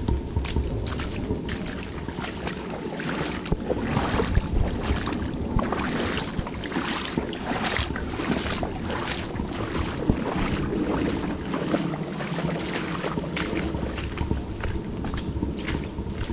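Walking footsteps on a wet, muddy track, about two steps a second, over a steady low rumble of wind on the microphone.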